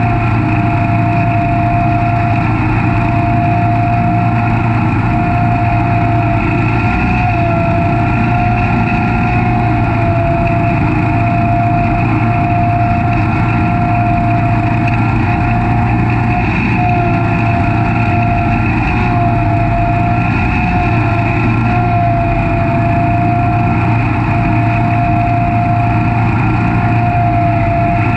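Snapper Pro SS100 36-inch stand-on mower running while cutting grass: a steady engine drone with a high whine over it that dips slightly in pitch a few times.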